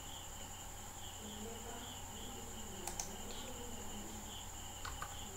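A faint, steady chirping in the background, pulsing about two or three times a second over a thin high whine. A sharp computer-mouse click comes about three seconds in and a softer click near the end.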